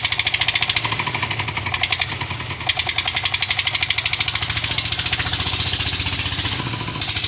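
Single-cylinder 'dompeng' diesel engine running a sand-suction pump, with a loud, rapid, even knocking of roughly eight beats a second. About five seconds in, the beat briefly smooths into a steadier hiss.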